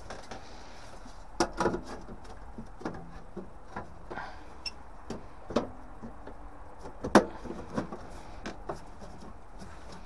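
Sheet-metal burner door of a gas boiler being picked up and fitted against the boiler's casing: scattered knocks and clanks, the loudest about seven seconds in.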